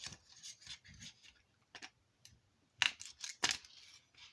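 Knife blade scraping and prying at a lithium battery inside a small plastic hotspot case: faint scrapes with scattered sharp clicks, the loudest clicks coming about three seconds in.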